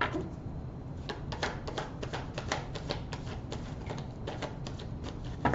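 Tarot cards being shuffled and handled: a quick, irregular run of light clicks and snaps, several a second.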